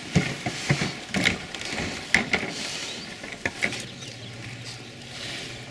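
Hand-operated metal lift arm on a dock being worked by its handle: irregular mechanical clicks and knocks, most of them in the first half.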